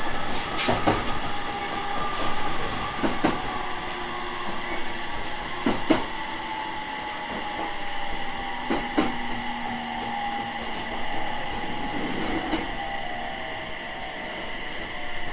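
Running sound inside a 701 series electric train as it slows: the traction motor and inverter whine falls steadily in pitch, and the wheels give single clacks over rail joints that come farther and farther apart.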